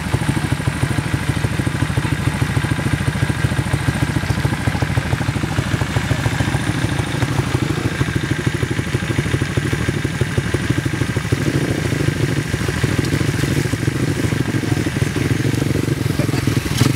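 Small motorcycle engine running steadily, with a fast, even firing pulse.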